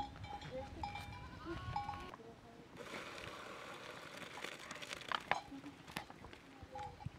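Boiled rice and its hot cooking water poured from a metal pot into a plastic colander: a rushing splash starting about three seconds in and lasting a couple of seconds, with a few knocks at its end. Short bleating calls of livestock sound in the background, mostly in the first two seconds.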